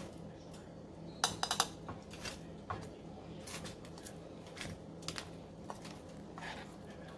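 Metal tongs clinking against a stainless steel pot while chicken wings are dipped in buffalo sauce. A quick cluster of clinks comes about a second in, followed by scattered single taps, over a faint steady hum.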